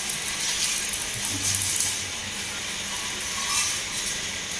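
Car-wash scissor lift raising an SUV: a steady hiss with a low mechanical hum underneath.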